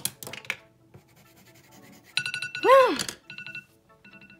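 An iPhone timer alarm going off about two seconds in, a repeating pattern of electronic beeps, with a short vocal exclamation that rises and falls in pitch over the first beeps. A couple of sharp clicks at the start as pencils are set down on the table.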